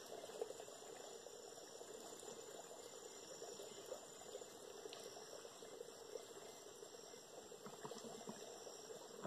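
Faint rainforest ambience: a steady high-pitched drone of insects, over a soft crackling hiss with a few small clicks.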